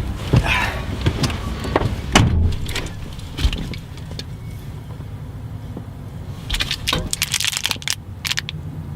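Car sounds: a steady low hum under scattered clicks and knocks, with a jingling rattle about seven seconds in.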